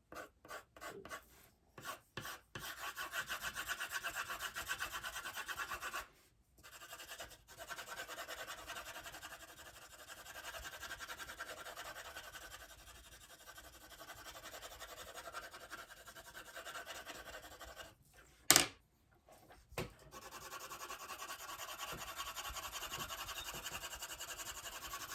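Pencil scratching on sketchpad paper in quick back-and-forth shading strokes. A few short separate strokes come first, and one sharp tap sounds about three-quarters of the way through.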